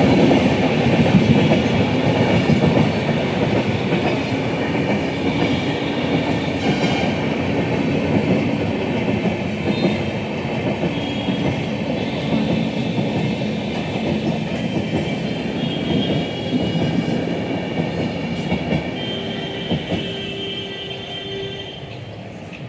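Train running past at speed: a steady rush of wheels on rail with clatter and a few thin high whining tones. It is loudest at the start and fades gradually as the train moves away.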